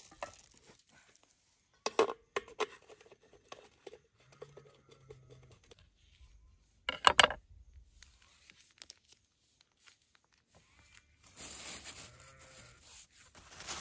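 Starch sausages being prepared on a wooden cutting board. A few sharp knocks on the board come about two seconds in, and the plastic casings are slit with a knife and torn off, loudest just after seven seconds. Plastic crinkles and rustles near the end.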